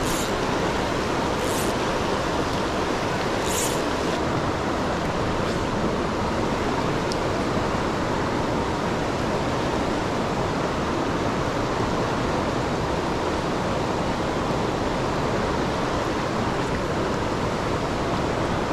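Fast river water rushing steadily over rocks, a constant even roar of current. Two short high hisses come through in the first four seconds.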